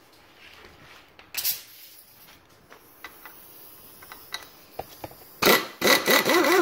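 Impact wrench hammering in several short loud bursts near the end, backing out a corrosion-seized screw in an outboard gearcase. A single sharp clunk comes about a second and a half in, with a few light clicks after it.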